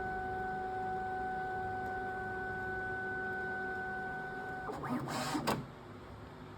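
Bambu Lab P2S 3D printer running its filament-drying prepare phase with a steady whine over a low hum. The whine cuts off suddenly about 4.5 seconds in, followed by a brief burst of clattering noise as the prepare phase finishes.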